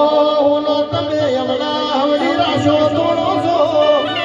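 A man sings a devotional folk song into a microphone over live accompaniment, amplified through a sound system. His wavering sung line sits over a steady drone and a low drum beat.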